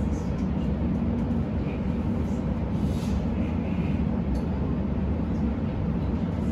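Steady low rumble of an electric suburban passenger train running along the track, heard from inside the carriage.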